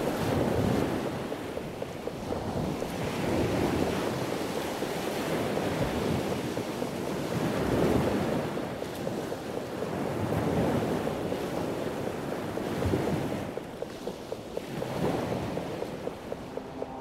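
Sea surf washing in and out in slow swells, with wind blowing. A light regular ticking, about three a second, comes in near the end.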